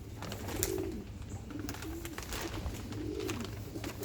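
Domestic pigeons cooing, several low coos spread through the moment, with light clicks and rattles over them.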